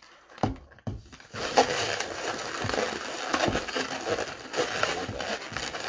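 Latex balloons rubbing and crinkling against each other and a clear plastic candy cup as a twisted-balloon sculpture is pressed and fitted on top. This gives a continuous crackly rustling with small clicks, starting after a couple of knocks about a second in.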